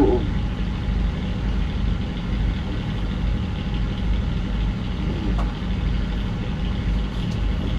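Steady low engine drone that does not change.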